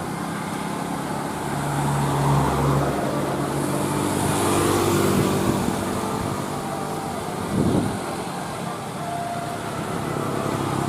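Road traffic passing: engine and tyre noise of passing vehicles, with a low engine drone swelling in the first few seconds and a brief low thump about three quarters of the way through.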